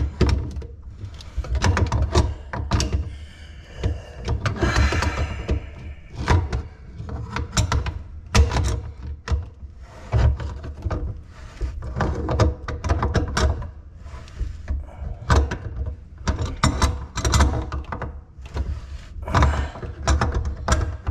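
Irregular knocks, clunks and rattles of tools and plumbing parts being handled in a kitchen sink cabinet during reassembly.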